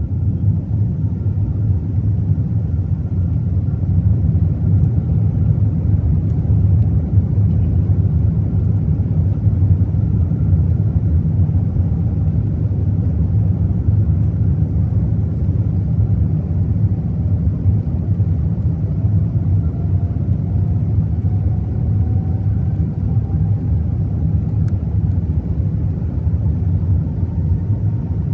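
Airbus A380 with Rolls-Royce Trent 900 engines during its takeoff, heard from inside the cabin: a loud, steady low rumble with a faint whine that slowly rises in pitch over the second half.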